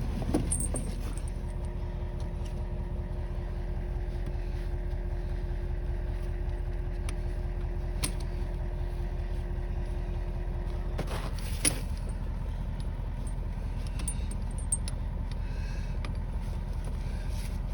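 A vehicle engine idling with a steady low hum, while the metal links of a snow chain clink now and then as it is hooked up. The strongest clinks come about 8 and 11 seconds in.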